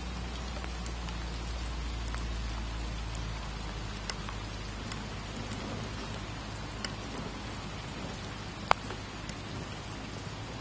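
Wind blowing over the microphone as a low rumble under a steady hiss; the rumble eases after about three seconds. Scattered sharp ticks and crackles sound throughout, one louder snap near the end.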